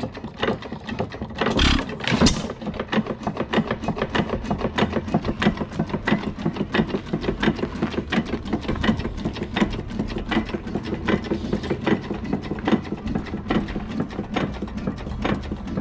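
4.5 hp Nelson Brothers (Detroit Engine Works) hit-and-miss engine running slowly, a rapid steady clatter of its valve gear, igniter and latch-out governor, with two louder knocks about two seconds in.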